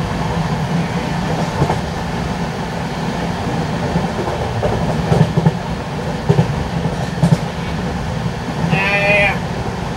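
LHB passenger coach running at speed over the track: a steady low rumble with sharp wheel clacks at rail joints, three of them about a second apart midway. A brief high pitched call or tone sounds near the end.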